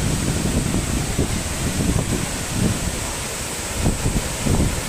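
Waterfall pouring heavily into a rock plunge pool: a steady rushing noise, with irregular low gusts of wind buffeting the microphone.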